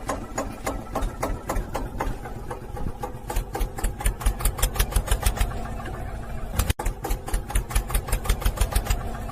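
Small tractor engine running with a steady rhythmic chugging, about five knocks a second, cutting out for an instant about two-thirds through.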